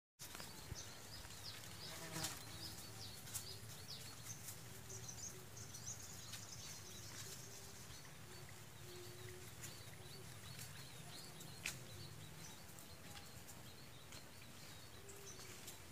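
Faint outdoor field ambience: small high chirps keep repeating throughout, and faint, drawn-out animal calls come and go through the middle.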